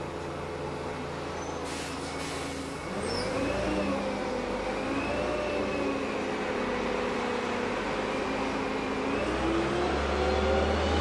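Heuliez GX317 LPG city bus heard from inside the passenger cabin: the engine runs steadily at low revs, with two short clicks about two seconds in. About three seconds in the engine and driveline tones rise and the sound grows louder as the bus accelerates, then ease and rise again near the end.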